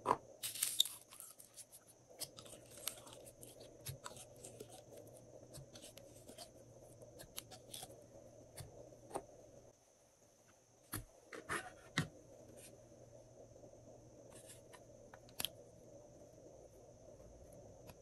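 Slime being squeezed out of plastic containers and dropped into a glass dish of slime: faint scattered clicks, crackles and soft squishes, with a few sharper clicks near the start and about eleven to twelve seconds in.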